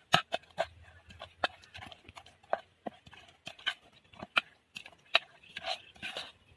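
Spoon stirring thick idli batter in a stainless steel vessel, knocking against the pot's metal side in irregular clacks about twice a second, with wet scraping of the batter between them.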